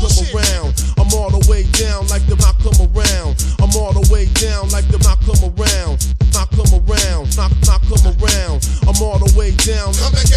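Hip hop track with a fast steady drum beat, heavy bass and rapping over it.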